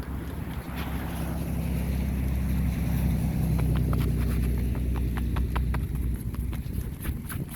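Strong wind buffeting the microphone: a deep rumble that swells to its loudest in the middle. In the second half, crunching footsteps in snow come through, a few steps a second.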